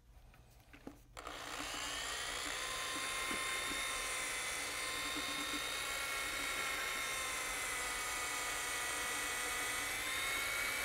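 Handheld electric paddle mixer starting about a second in, spinning up quickly and then running at a steady speed with a motor whine, blending the liquid resin and hardener of a urethane cement in a plastic bucket.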